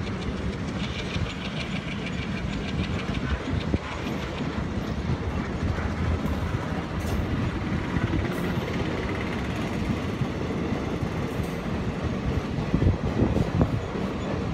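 Indian Railways broad-gauge passenger coaches rolling past: a steady rumble of steel wheels on the rails with clickety-clack over the rail joints, the clatter getting louder near the end.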